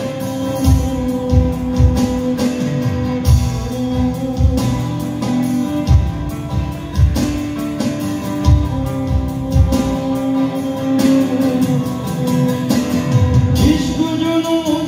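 Live acoustic band: acoustic guitars strummed in a steady rhythm while a violin holds long bowed notes over them. A voice comes in singing near the end.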